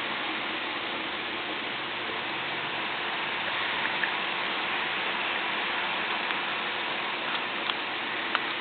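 Steady hiss of background noise with a few soft clicks and taps, about four seconds in and twice near the end, as rolled paper rounds are loaded into a paper rifle's magazine.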